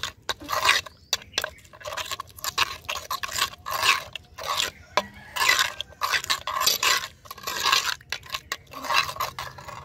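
A metal spoon scrapes around a glazed clay bowl, stirring a thick cream marinade in quick repeated strokes, about two a second.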